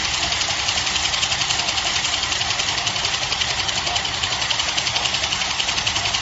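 Band saw cutting machine for hand towel paper running: a steady, high-pitched mechanical noise with a fast, even pulse.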